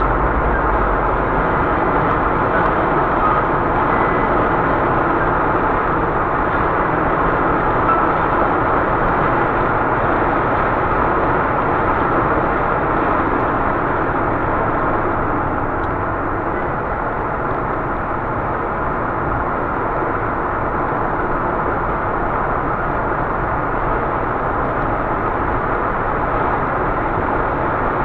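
A car running: a steady, even rush of engine and road noise with no distinct knocks.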